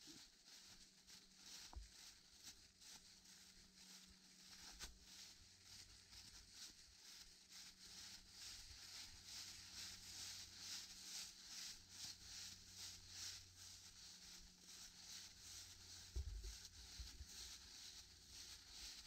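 Faint footsteps rustling through dry fallen leaves at a steady walking pace, with a soft low bump near the end.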